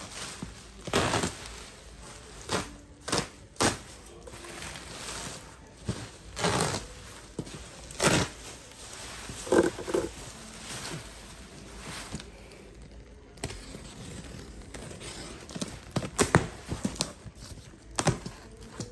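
Bubble wrap and plastic wrapping crinkling and rustling as they are pulled off a cardboard box by hand, with scattered knocks and thunks as the box and its cardboard flaps are handled.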